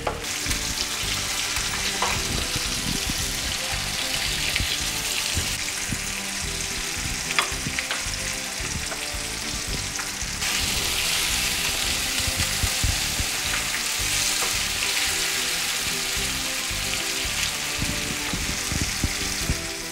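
Tilapia fillets coated in a gram-flour masala paste shallow-frying in hot oil in a frying pan: a steady, dense sizzle that gets louder about ten seconds in, with a few light clicks.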